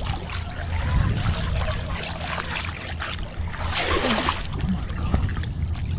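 Water swishing and splashing at the boat's side as a lure is swept through a figure-eight with a large muskellunge following it, with a louder swirl about four seconds in. A steady low hum runs underneath.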